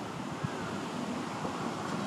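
Wind noise on the microphone: a steady rushing hiss with a flickering low rumble and no distinct events.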